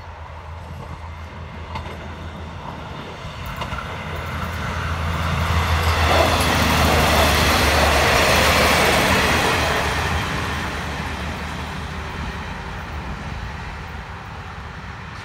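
Diesel multiple-unit express train passing at speed: the engine hum and wheel-on-rail noise grow louder, peak for a few seconds in the middle, then fade as the train moves away.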